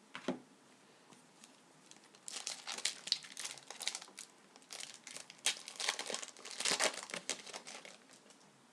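Trading card pack wrapper crinkling and tearing as it is handled, with a single click near the start.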